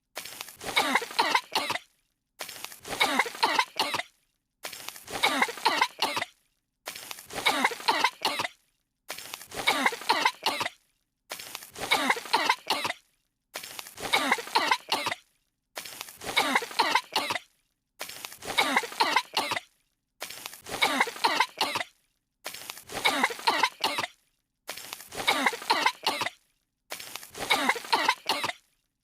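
Two cartoon characters coughing in a short fit of several coughs, the same clip looped over and over: a burst about every two seconds, each followed by a moment of silence.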